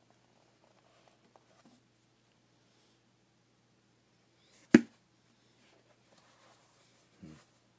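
Books being handled on a shelf: a single sharp knock about two-thirds of the way through, then a softer, duller thump near the end, as a paperback is picked up and moved. A few faint ticks and a low steady room hum lie underneath.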